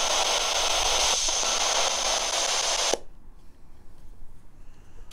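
Loud steady static hiss that cuts off suddenly about three seconds in, leaving only a faint hiss.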